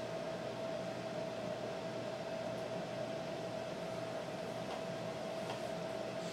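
Steady background noise: an even hiss with a constant mid-pitched hum, and a couple of faint clicks near the end.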